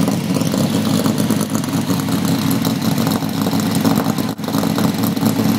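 Holden VL Commodore SS V8 idling steadily through a loud customised exhaust, in an underground car park.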